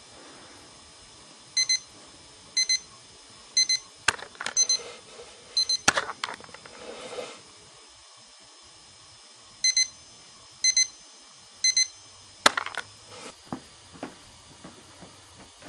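Alarm clock beeping in short high double beeps about once a second. It stops after about six seconds with a knock and a rustle, starts again about ten seconds in, and is cut off by a loud knock, followed by a few faint clicks.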